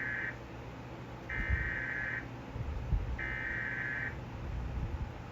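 Emergency Alert System SAME header from a DASDEC II encoder: bursts of shrill digital data tones, each just under a second long and a second apart. The first burst ends just after the start, then two more follow, the header sent three times to open a severe thunderstorm warning. A couple of low thumps come in the room during the second and third bursts.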